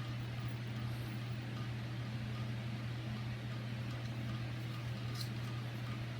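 Steady low mechanical hum with a faint small click about five seconds in.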